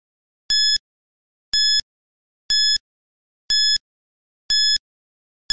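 Countdown timer sound effect: a short, high electronic beep repeating exactly once a second, with silence between beeps, ticking off the seconds of the answer countdown.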